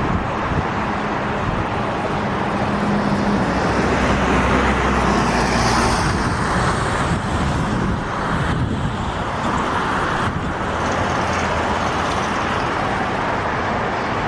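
Steady rumble of highway traffic mixed with a freight train's cars rolling along the rails. A low engine hum stands out from about two to six seconds in.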